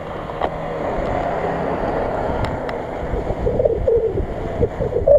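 Subaru Forester engine revving as the car drives through mud, over a rumble of wind on the microphone; a wavering whine rises from about two-thirds of the way in.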